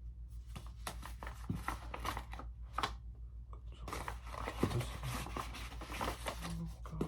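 Packaging and clothing rustling and crinkling in irregular bursts as items are handled and pulled out of a parcel, over a steady low hum.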